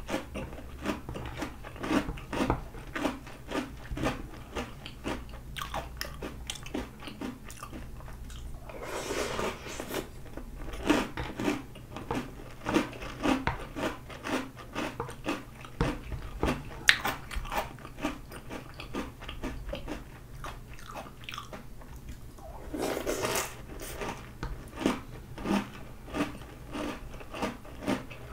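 Close-miked chewing of crunchy Oreo O's cereal with milk: a steady run of crisp crunches, about two or three a second. Twice there is a second-long slurping sound.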